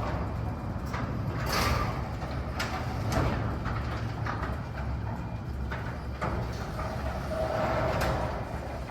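Sommer 2060 evo+ garage door opener moving a 14-by-14 Wayne Dalton sectional door: a steady low hum with scattered clicks and knocks.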